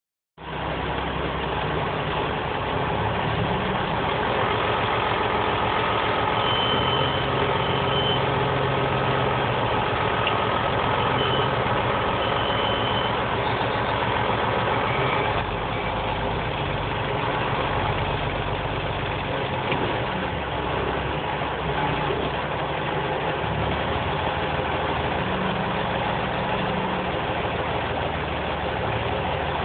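Tractor engine running steadily while the front loader is raised and worked on its hydraulics. The engine note shifts several times.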